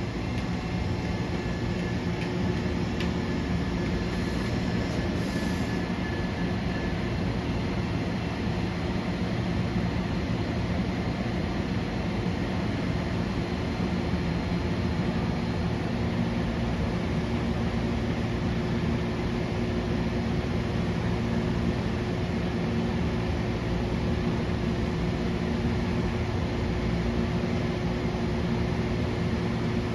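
Amtrak passenger train's diesel locomotive running with a steady, even hum, its pitch unchanging.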